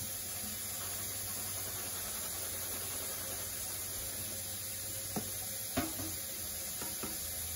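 A steady low hiss of kitchen background, with two light knocks about five and six seconds in as kitchenware is handled at the sink.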